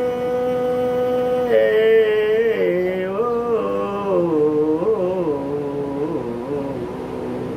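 A man singing a folk devotional khyal unaccompanied. He holds one long note, then about a second and a half in breaks into a wavering, gliding run that grows softer toward the end.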